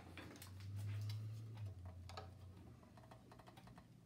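Light metallic clicks and ticks from a screwdriver and hands working a drive belt onto a small air compressor's pulley, over a low steady hum that swells briefly about half a second in.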